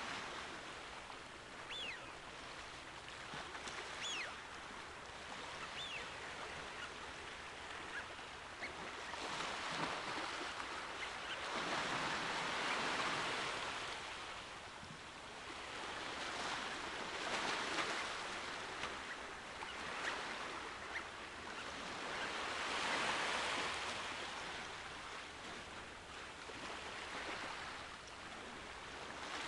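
Small waves washing on the shore, a steady hiss of water that swells and fades every several seconds. There are a few faint, short high chirps in the first few seconds.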